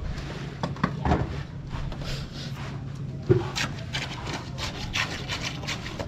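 Shovel scraping and spreading wet concrete on a hand-poured slab: a series of rough scrapes, closest together in the second half, with a single sharp knock a little past halfway.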